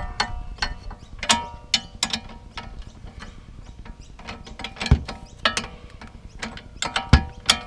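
Hand ratchet wrench clicking in short, irregular strokes as it turns a locking nut onto a sway bar link's stud, the metal ringing briefly after each group of clicks; the nut's locking insert makes it stiff to turn.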